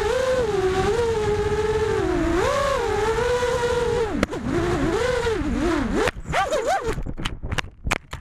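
FPV racing quadcopter's brushless motors and propellers on a 4S battery, heard from the onboard camera, whining with the pitch rising and falling as the throttle changes. About six seconds in the whine dips and breaks up into a string of sharp knocks as the drone crashes and tumbles, and the motors cut out near the end.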